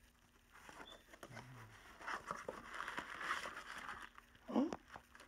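Rustling and crinkling of packaging as a wrapped bundle is pulled from a cardboard box and handled, with a short rising vocal sound near the end.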